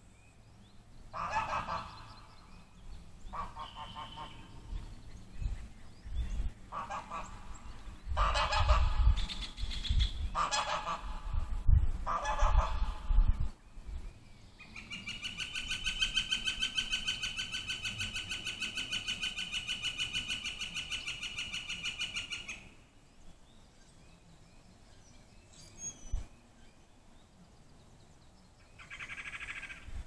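Waterfowl on a lake calling: a run of loud calls, each a second or two long, over the first half. A long, even trill follows for about eight seconds, then one more call near the end.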